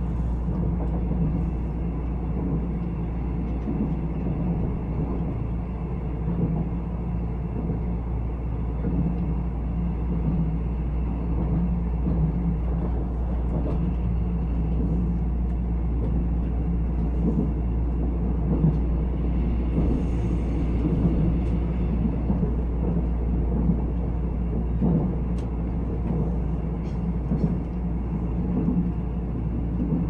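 Steady low rumble of a Nuriro passenger train running at speed, heard from inside the passenger car, with a few faint clicks.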